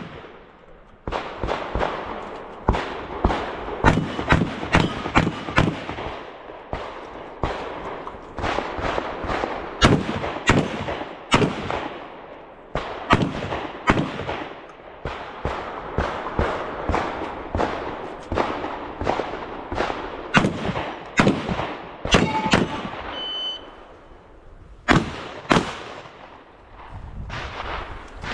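Rapid 12-gauge shotgun fire from a Gryf Open-division shotgun: many sharp shots in quick strings, often two or three a second, broken by short pauses.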